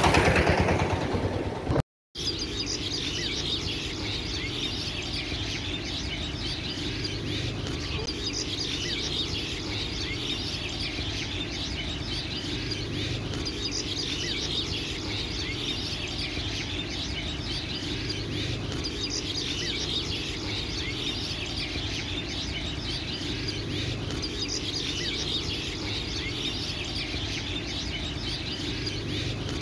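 Road traffic noise cuts off abruptly about two seconds in. After that comes a steady, dense chorus of small birds chirping and twittering.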